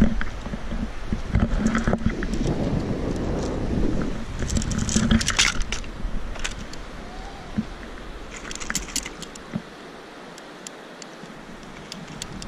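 Metal clinking and jangling in two short clusters, about five seconds in and again near nine seconds, over a low rumble of handling noise in the first few seconds.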